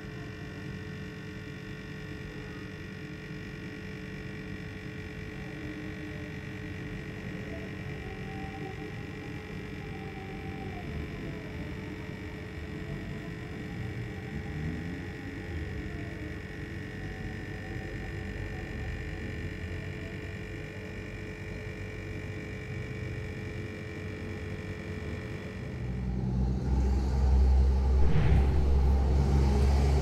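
A steady hum with several held tones. Near the end a loud low rumble comes in and grows.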